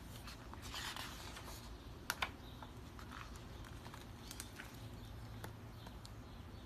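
Hardcover picture book being handled: pages turning with faint paper rustles, and a few sharp clicks as the hard covers are gripped and the book is closed, the loudest a quick pair about two seconds in.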